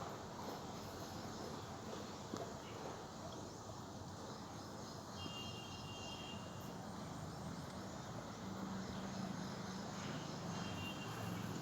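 Faint outdoor background noise with two short, thin, high chirps, one about halfway through and one near the end, and a low hum in the second half.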